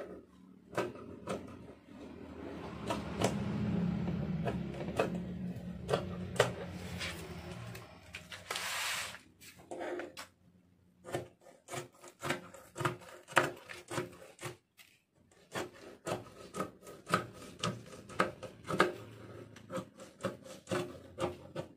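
Fabric scissors cutting layered lace along a paper pattern on a tabletop: rubbing and scraping of cloth and paper for a few seconds, then a run of short sharp snips and clicks, a couple a second, through the second half.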